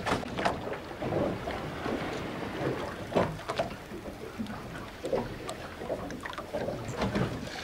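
Wind and sea noise on the open deck of a boat, wind buffeting the microphone, with irregular knocks and clatters scattered throughout.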